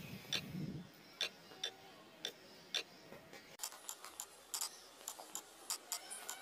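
Light clicks of typing on a phone's touchscreen keyboard, irregular and sparse at first, then quicker and closer together about halfway through.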